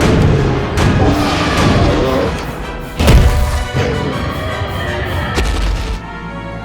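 Background music with a loud boom about three seconds in.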